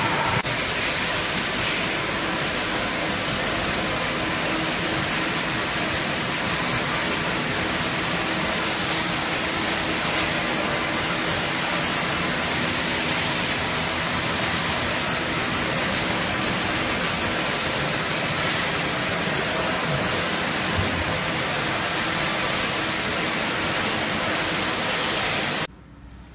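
Steady, loud machine-shop din from a hall of running CNC lathes: an even rushing noise with faint steady hums under it. It drops away sharply near the end.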